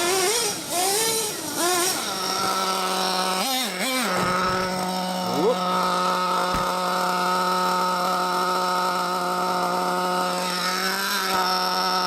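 Ofna Dominator nitro RC truck's RB K10 engine revving up and down, then, after a brief drop about four seconds in, holding a steady high-pitched note at sustained revs, with a short waver near the end.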